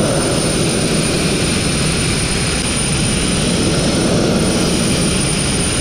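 Abrasive blast nozzle spraying fine crushed glass against a steel boat hull: a steady, loud hiss of compressed air and grit.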